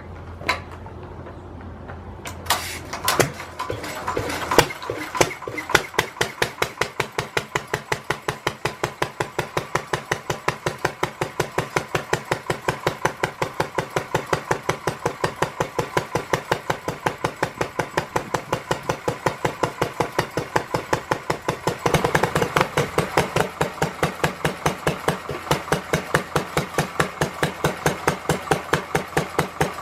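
Lister D 1.5 HP single-cylinder stationary engine starting: a few uneven firings about two and a half seconds in, then running with a steady, even beat of about four to five strokes a second. It gets louder about three quarters of the way through.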